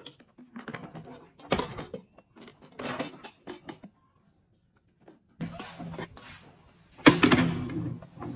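Plastic spin mop bucket being handled and taken apart: a series of knocks and clatters from the plastic parts and steel spinner basket, then a longer, louder rattle about seven seconds in.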